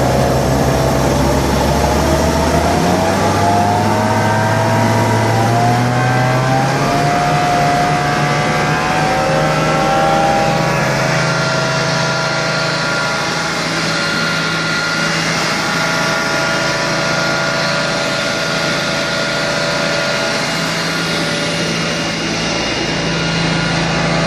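Truck-mounted carpet-cleaning unit, the truck's diesel engine driving the vacuum blower, being throttled up: its pitch rises over several seconds, then holds steady at full cleaning speed.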